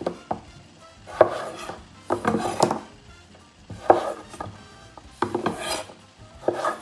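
Chef's knife cutting through raw potato wedges and knocking on a wooden chopping board: a string of separate cuts, roughly one a second, each a short slice ending in a sharp knock.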